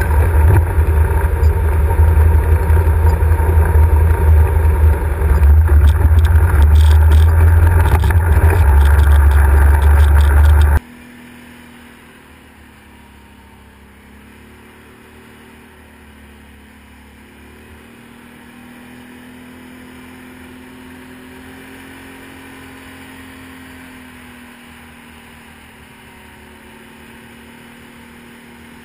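Can-Am 1000 V-twin ATV riding over rough ground, loud engine rumble mixed with wind buffeting on the mounted camera and a few clicks. About eleven seconds in the sound cuts off abruptly to a much fainter, steady engine drone while riding on a wet road.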